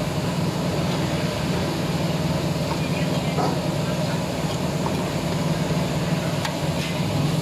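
Steady low machine hum, with a few faint snips of scissors cutting wood ear mushrooms.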